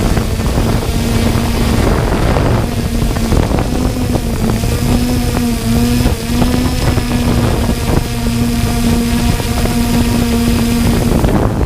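3DR Solo quadcopter's electric motors and propellers humming steadily in flight, the pitch wavering slightly as the throttle changes, with wind rushing over the microphone.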